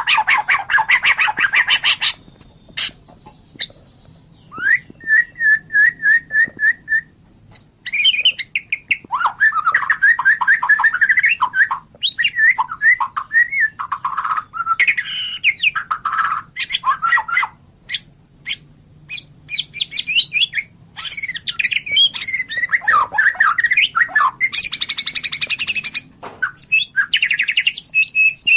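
White-rumped shama (murai batu) singing a long, varied song: rapid trills of repeated notes, clear whistled phrases and harsh chattering notes, broken by short pauses.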